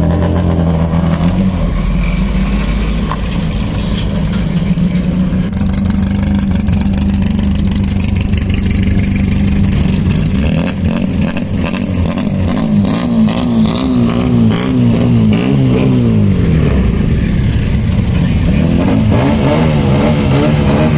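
Rear-mounted Honda H22A four-cylinder engine of a Mini race car driven hard on track, heard from on board. It starts abruptly and runs loud and steady, then the revs rise and fall repeatedly through the middle, drop sharply about two-thirds in, and climb again near the end.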